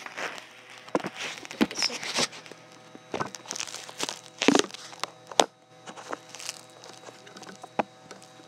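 Handling noise from a phone camera being moved about: scattered sharp knocks and taps with rustling in between.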